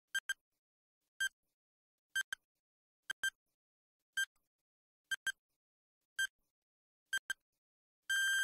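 Quiz countdown timer sound effect beeping about once a second, some beeps doubled into quick pairs. A long steady beep starts near the end as the count reaches zero.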